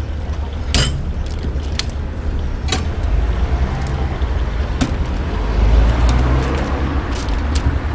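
Low street-traffic rumble that swells midway as a vehicle goes by, with several sharp metallic clicks and taps from hands working on an electric cargo bike's rear wheel and brake, the loudest about a second in.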